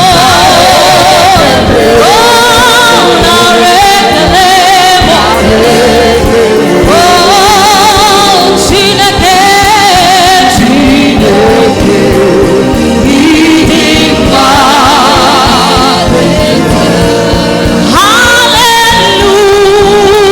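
A gospel choir singing with full band accompaniment, voices sliding and wavering with strong vibrato.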